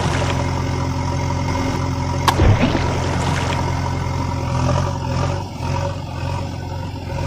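Steady idling of a heavy diesel machine's engine, dubbed as a sound effect, with a single sharp click about two seconds in.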